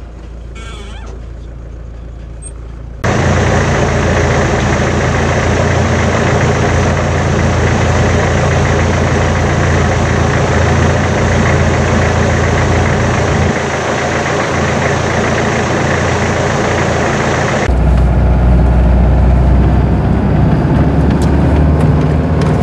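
Off-road 4x4 vehicles' engines running over rough ground, in edited clips. From about three seconds in to about eighteen, a loud, steady rushing noise covers the sound, then cuts off suddenly to a louder, low engine drone.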